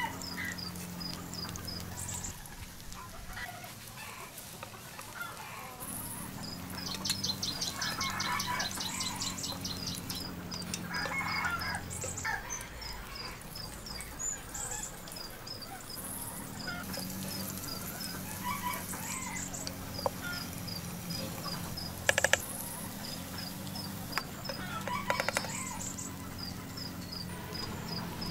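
Chickens clucking, with a bird or insect chirping in quick, high, repeated notes throughout and a denser trill from about seven to ten seconds in.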